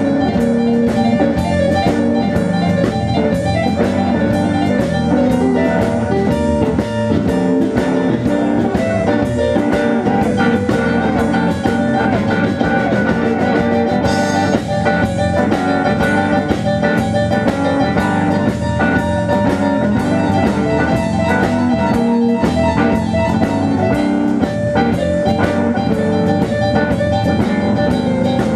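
Live blues band playing: semi-hollow electric guitar over a drum kit, with a steady beat.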